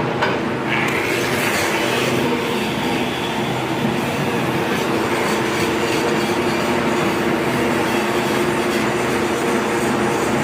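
Angle grinder running steadily against steel, grinding down a weld on a leaf spring.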